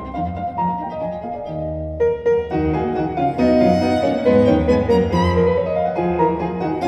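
Classical violin and piano music played through a desktop hi-fi system, Wilson Audio TuneTot speakers driven by Leema Acoustics Elements pre and power amplifiers. The violin line comes forward a little after the first few seconds.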